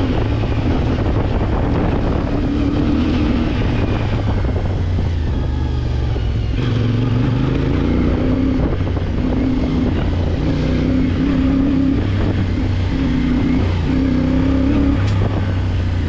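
CFMOTO 450MT's parallel-twin engine running as the motorcycle is ridden off-road, its note rising and easing with the throttle, over a steady rush of wind and trail noise.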